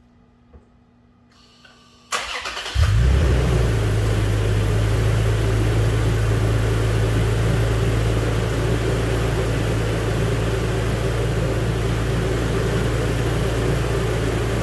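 Toyota Tacoma pickup's engine cranked by the starter about two seconds in, catching within a second and settling into a steady idle.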